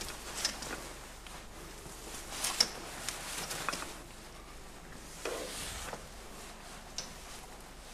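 Faint footsteps and handling noise: scattered small clicks and knocks, with a brief scraping rustle about five seconds in.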